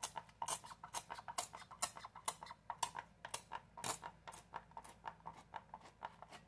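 Hand-pumped oil sprayer misting oil over raw seasoned pork ribs: a quick run of short sprays, about two a second.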